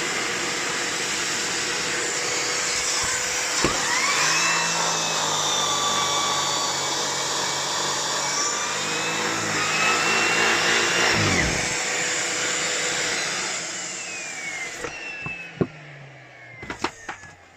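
Miele Complete C3 canister vacuum cleaner running with suction through the hose: a steady motor and airflow noise whose pitch sweeps twice. It winds down near the end, followed by a few light clicks.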